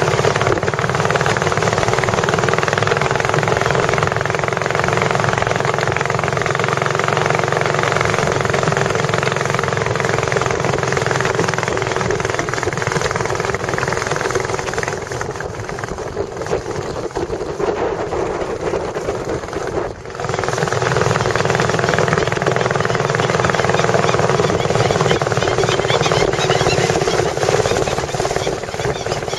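Tourist boat's engine running steadily with a hard, rattling drone. It eases off for a few seconds past the middle, then picks up again.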